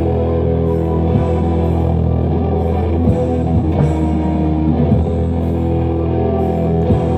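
Live rock band playing: held, sustained electric guitar chords over a low drone, with a few scattered drum hits.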